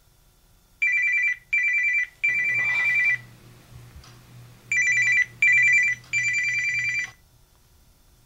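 Mobile phone ringing: a pulsing two-tone electronic ringtone in a short-short-long pattern, heard twice, with a low buzz underneath from about two seconds in.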